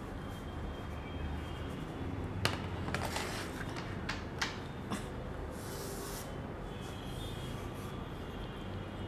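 Chalk and cloth worked on a small plastic-framed chalk slate: several sharp taps and clicks between about two and a half and five seconds in, then a short scraping swish about six seconds in, over a low steady hum.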